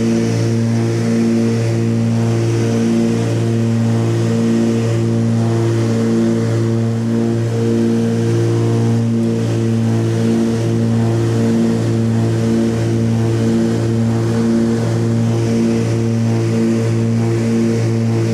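Background music: a steady low bass under rhythmic notes that step from pitch to pitch about twice a second.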